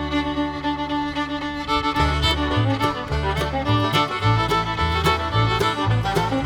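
Upbeat background music with a fiddle melody over a steady beat and bass.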